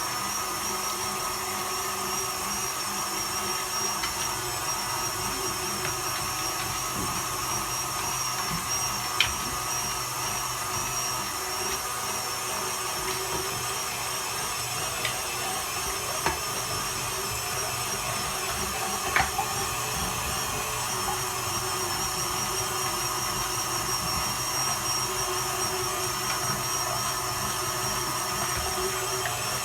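Electric meat grinder running steadily as it grinds soaked chickpeas for falafel, with a few short sharp clicks along the way.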